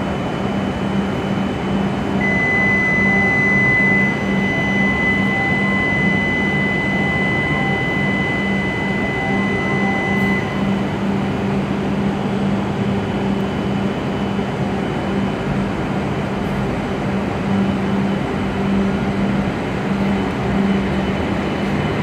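W7 series Shinkansen standing at the platform, its onboard equipment giving a steady low hum. A single steady high electronic tone comes in about two seconds in and stops after about eight seconds.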